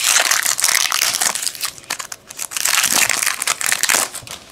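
Foil wrapper of a Topps Chrome trading-card pack crinkling as it is torn open and handled, in two spells of crackling with a short lull between.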